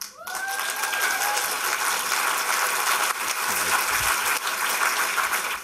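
Audience applauding steadily, with one short held cheer from a voice near the start.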